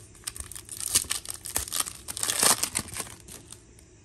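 A foil trading-card pack wrapper torn open and crinkled by hand: dense crackling, loudest about a second in and again around two and a half seconds in, dying away near the end.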